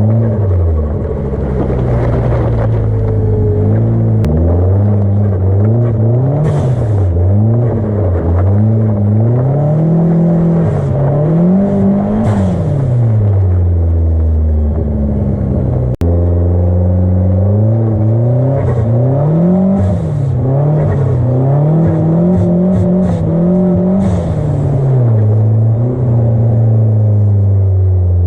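Mitsubishi Lancer EVO X–spec turbocharged 2.0-litre four-cylinder revving up and down over and over under wheelspin. Short hissing bursts of turbo flutter and blow-off valve come as the throttle lifts, several of them in quick succession past the middle.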